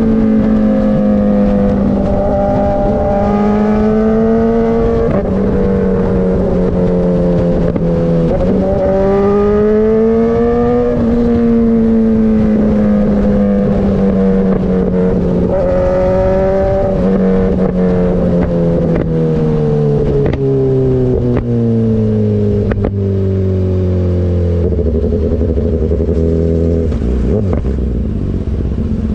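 BMW S1000RR inline-four engine through an Austin Racing GP1R full Inconel exhaust, held at high revs with the note stepping up and down several times, then falling steadily over the last third to a low, steady note.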